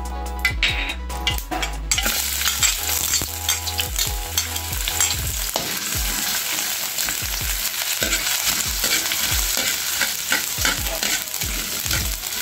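Sliced ginger sizzling in hot oil in a steel wok, the sizzle starting about two seconds in, while a metal spatula scrapes and taps against the wok as the ginger is stirred.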